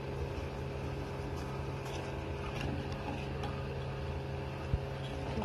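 A steady low hum with faint scraping and light ticks as sugar is tipped from a bowl into a steel pot of milk and stirred with a spoon. A single sharp click comes near the end.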